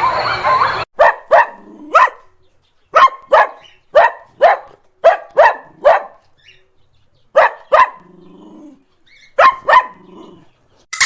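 Dog barking: about fourteen short, sharp barks, some single and some in quick pairs, with silent gaps between. Before them, a wavering high-pitched animal sound cuts off abruptly just under a second in.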